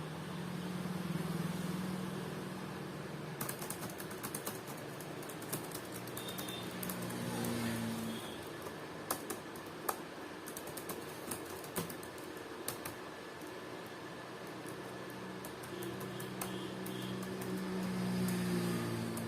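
Typing on a newly replaced laptop keyboard: irregular key clicks, a few sharper than the rest, through the middle of the stretch.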